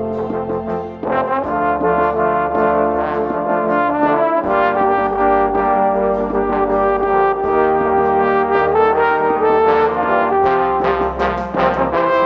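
Trombone ensemble of eight parts playing sustained chords, the harmony moving to a new chord every few seconds, with quicker moving notes near the end.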